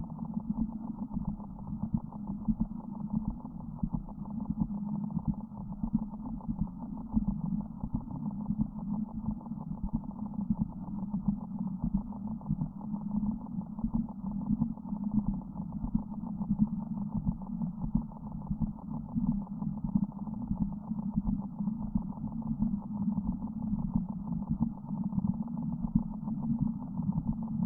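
Radio receiver putting out a low, steady, rapidly fluttering buzz: interference from a mobile phone near the radio.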